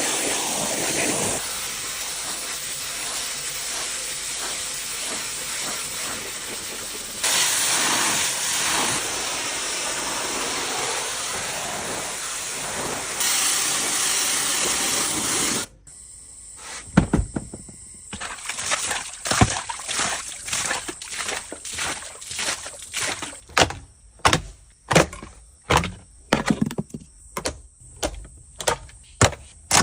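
High-pressure water spray hissing steadily, growing louder twice as it plays over different surfaces, then stopping abruptly. After that comes a series of separate knocks and scrapes, roughly one or two a second.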